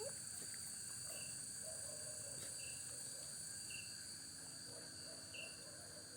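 Crickets at night: a steady high trilling chorus, with a short chirp repeating about every second or so.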